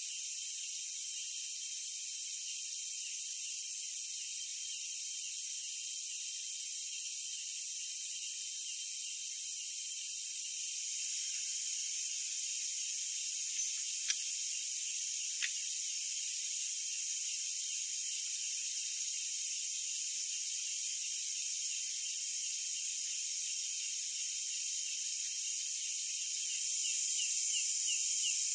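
Steady, high-pitched chorus of night insects, with a rapid run of chirps near the end. Two light clicks about halfway through.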